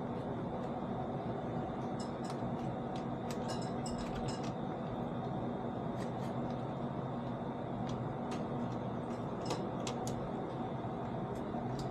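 Light metallic clicks and clinks of a chainsaw chain being handled and positioned in a saw chain vise, a cluster of them about three to four seconds in, over a steady mechanical hum.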